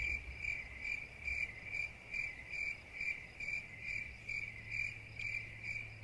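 Cricket chirping in a steady, even rhythm, a little over two short high chirps a second.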